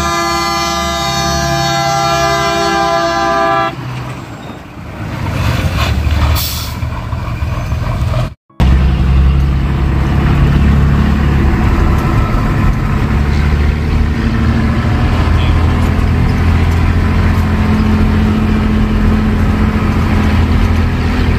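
A horn sounds a held chord of several notes for the first few seconds, then stops. After a brief dropout about eight seconds in, an old Scania-Vabis truck's engine runs with a low, steady rumble.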